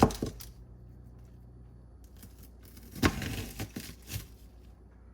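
Cut red onion being handled and cut on a cutting board: a sharp knock at the start, then a short crackly, tearing sound about three seconds in and a smaller one just after.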